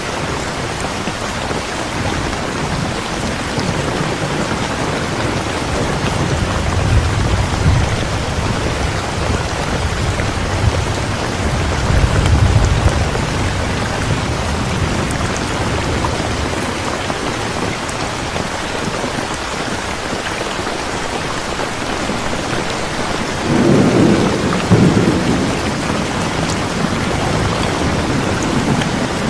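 Steady rain falling with an even hiss. Low rumbles of thunder roll in three times: about a quarter of the way in, near the middle, and again near the end.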